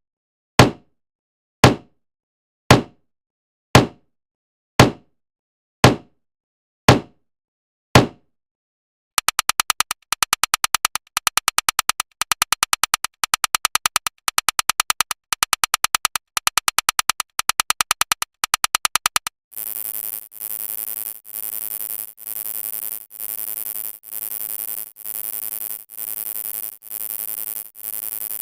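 Electronic sound effects ticking off a running count. First about eight sharp knocks, one a second. Then a rapid stream of fast clicks for about ten seconds, then a string of pitched synthesizer tones about once a second.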